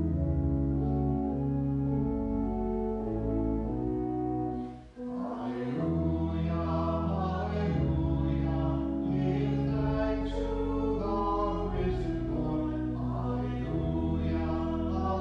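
Church organ playing sustained chords, then, after a brief break about five seconds in, a few voices singing with the organ.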